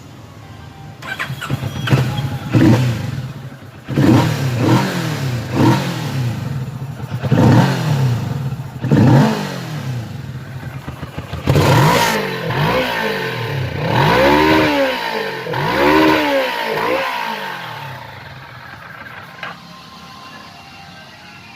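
Kawasaki Vulcan S 650's 649 cc parallel-twin engine idling, then revved again and again in quick throttle blips, each rising and falling in pitch, before settling back to idle near the end.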